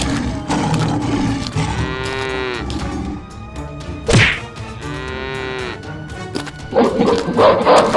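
Cow mooing twice, each call about a second long, with a sharp whack between the two calls.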